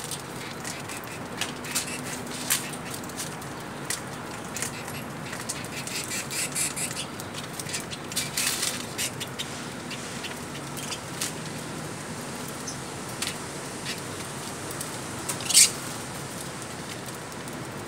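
Small finches feeding at a seed dish in an aviary: scattered light clicks and taps of pecking and hopping. A few brief, sharper sounds stand out, the loudest near the end.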